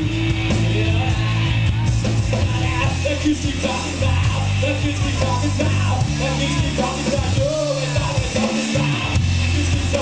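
Rock band playing live: electric guitar, electric bass and a drum kit with cymbals, with a man singing the lead vocal in a shouted style over a driving bass line.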